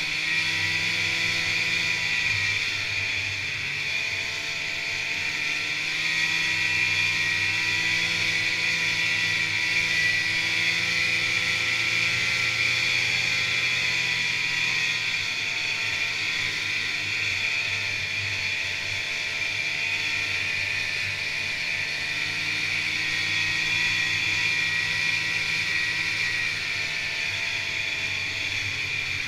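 Snowmobile running steadily at trail speed, heard from on the moving sled: an engine drone whose pitch wavers slightly as the throttle changes, under a steady high hiss of track and air.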